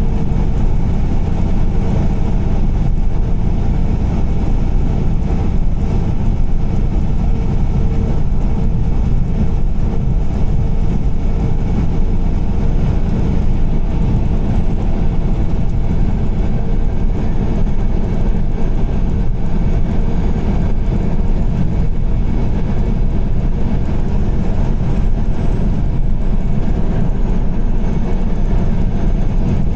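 Car driving on a wet highway in heavy rain: a steady, constant low rumble of tyre and road noise.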